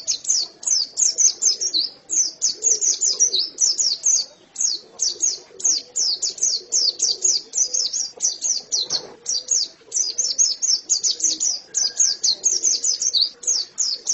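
White-eye (pleci) singing a long, unbroken song of rapid high-pitched chirping notes, several a second.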